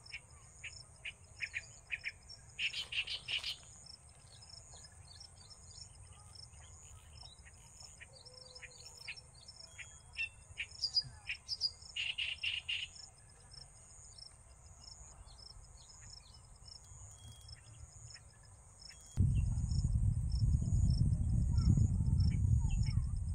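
Insects buzzing in a steady, high, pulsing drone, with small birds chirping in short quick series near the start and again about halfway. Near the end a louder low rumble sets in suddenly and lasts to the close.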